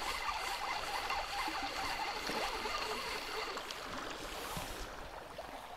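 River water lapping and trickling at a pebble bank, a low steady wash.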